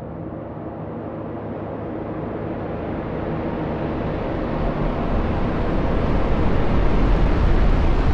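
Cinematic riser sound effect: a rumbling noise swell that grows steadily louder and brighter, building toward a hit.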